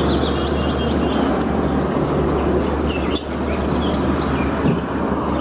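Hino dump truck's diesel engine running steadily as the loaded truck drives slowly by, with a low hum under a broad wash of engine and road noise that cuts off at the end.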